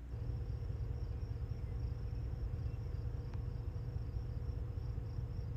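Crickets chirping in a steady, even pulse over a continuous low rumble, with one faint click about three seconds in.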